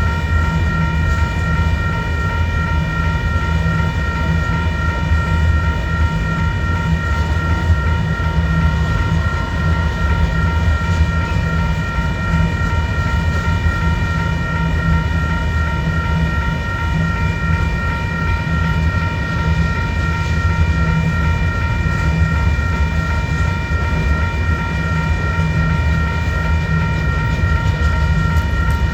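Union Pacific gravel train's freight cars rolling past on the rails: a steady low rumble, with several high tones ringing steadily over it.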